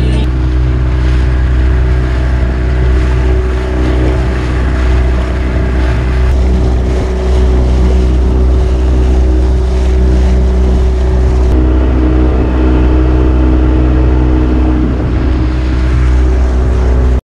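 Small boat's outboard motor running steadily under way, with wind and water rushing past.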